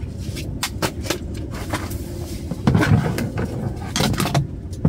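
Camp cooking sounds: scattered sharp clicks and a few heavier knocks over a steady low rumble, with the loudest knocks about three seconds and four seconds in.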